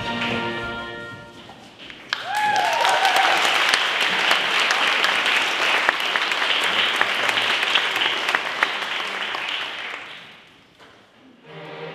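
Audience applauding for about eight seconds after the instrumental music dies away, with a brief high call as the clapping starts. The applause fades out and the instruments start up again near the end.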